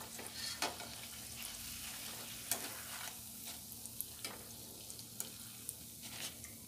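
Hot oil sizzling in a kadhai as deep-fried batata vadas are lifted out with a wire-mesh skimmer, with scattered sharp crackles and pops. The sizzle thins out from about three seconds in as the vadas leave the oil.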